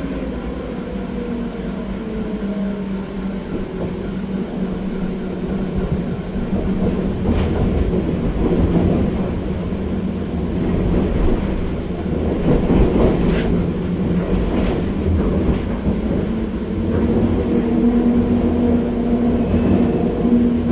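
Pesa 122NaL Swing tram heard from inside the passenger saloon while running: a steady hum from the traction drive over wheel-on-rail rumble. Near the start a motor whine falls in pitch. Several sharp clicks from the wheels over the track come in the middle.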